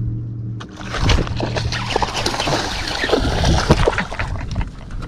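A sudden flurry of splashing at the water's surface, starting about a second in and running for about three seconds before tapering off: a school of bass busting baitfish on top. A steady motor hum stops near the start.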